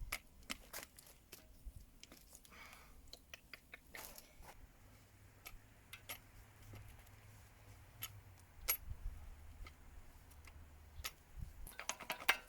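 Faint, irregular metallic clicks and ticks from a hand grease gun being fitted to and worked on a pivot-pin grease nipple, with a low rumble in the middle.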